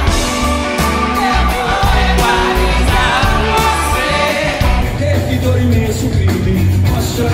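Rock band playing live with a lead singer, heavy bass and drums. About five seconds in it jumps abruptly to a different song.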